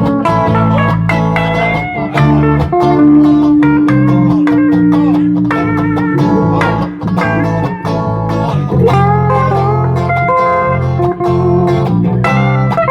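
Instrumental band music led by guitar over a bass line and regular drum beats, with one guitar note held for about three seconds near the start.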